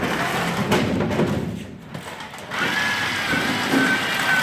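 A FIRST Robotics Competition robot taking in plastic balls: the balls clatter and thump into it while its electric motors whine at a steady pitch, the whine returning about halfway through after a brief lull.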